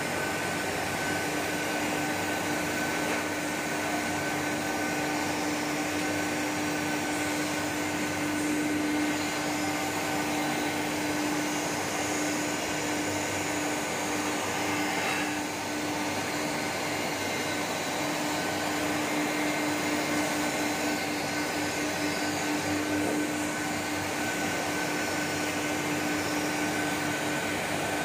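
Industrial plastic film machinery running steadily: a constant mechanical hum with a fainter high whine over an even rushing noise.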